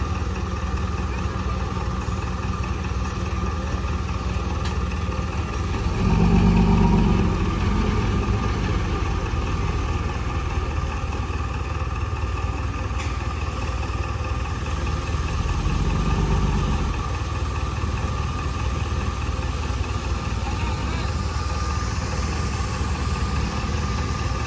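Bulldozer engine running steadily, swelling louder twice: about six seconds in and again around sixteen seconds.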